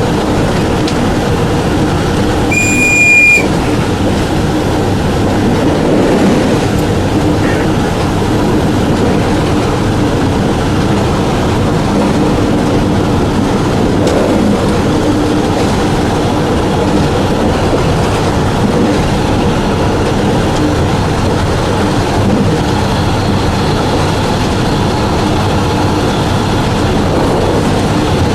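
Passenger train running on the track, heard from the locomotive cab: a steady rumble of the moving train with wheel-on-rail noise. A brief high-pitched tone sounds about three seconds in.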